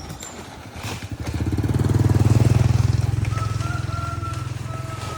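A motor vehicle passing by on the road: its engine grows louder from about a second in, peaks midway, then slowly fades.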